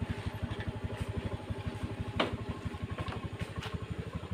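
Motor scooter engine idling with an even, fast putter, about a dozen beats a second. A single sharp knock sounds a little over two seconds in.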